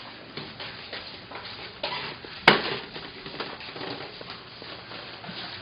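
Indoor household clatter of small knocks and rustles, with one sharp, loud clack about halfway through, like a hard object knocking against a dish or pan.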